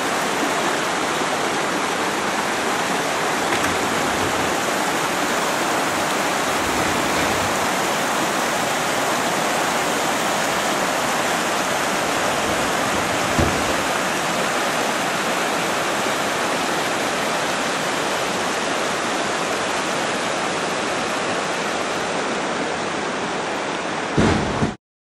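Creek water rushing over rocks in a steady, even roar. It cuts off abruptly near the end.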